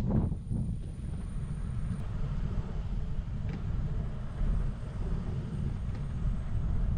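Wind buffeting the microphone of a camera riding on a moving road bike: a steady low rumble.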